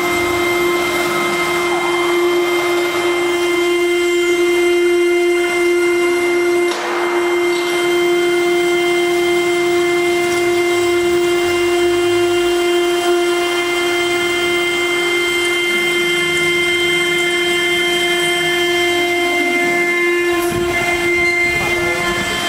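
Spindle of a CNC stone router running with a steady high-pitched whine while its water-cooled tool cuts a circular groove into a stone slab.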